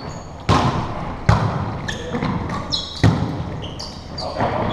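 A volleyball being hit during a rally: three sharp smacks, about half a second, a second and a quarter, and three seconds in, each echoing around a hardwood-floored gym, with several short high sneaker squeaks on the floor between them.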